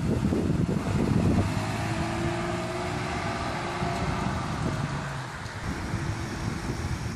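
A car driving away down a street, its engine note gliding as it pulls off, with wind buffeting the microphone.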